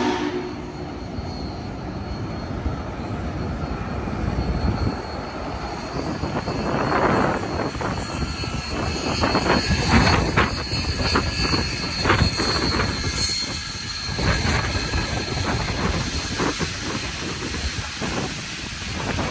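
A slow-moving steam train passing close by: Union Pacific 2-10-2 No. 5511 rolls past unpowered, pushed by 4-8-8-4 Big Boy No. 4014. It is a steady rumble, with irregular clanks and knocks from about seven seconds in.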